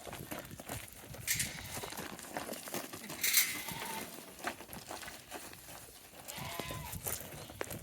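Goats bleating a few short times, among scattered knocks and rustling.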